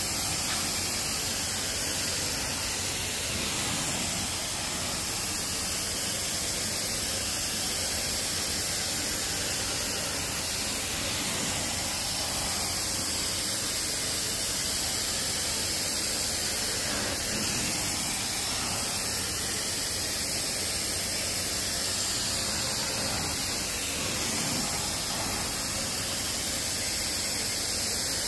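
Carpet-cleaning extraction wand working across carpet, its spray and vacuum suction making a steady rushing hiss without a break.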